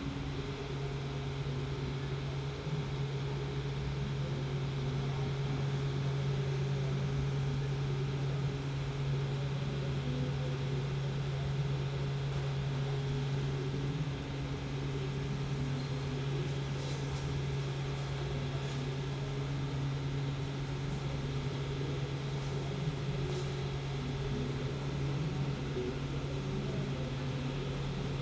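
Riehle hydraulic universal testing machine running with a steady low hum while it pulls an anchor bolt in a tensile test, with a few faint ticks in the second half.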